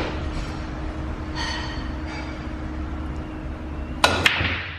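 Pool shot: two sharp clacks of billiard balls, about a quarter second apart, near the end.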